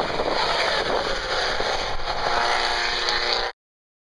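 Race car engines running hard on a circuit, a loud steady engine noise that cuts off suddenly about three and a half seconds in.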